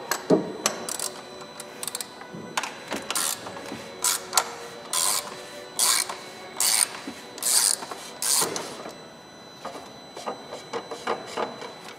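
Ratchet wrench clicking in repeated strokes, about one a second, as the oil filter housing cap on a diesel engine is unscrewed; fainter scattered clicks and rubbing near the end.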